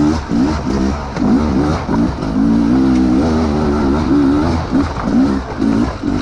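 Enduro dirt bike engine under the rider's throttle as it is ridden over loose rocks, the revs rising and falling in short blips, held steadier for about a second near the middle.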